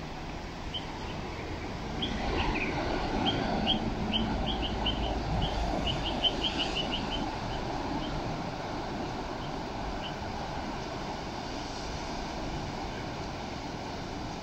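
Steady wash of surf breaking on the beach, with wind on the microphone. A small bird calls over it in a run of quick, high chirps, thickest in the middle, fading out after about ten seconds.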